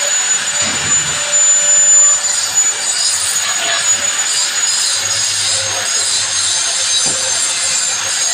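Hand saw cutting a workpiece: continuous sawing, with a thin steady high-pitched tone running through the rasp of the blade.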